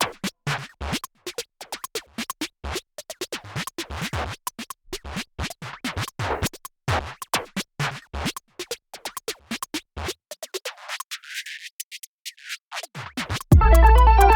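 Electronic background music: a sparse run of scratchy clicks and stabs, then a sweep that closes down. Near the end, a heavy bass beat and a repeating keyboard melody come in.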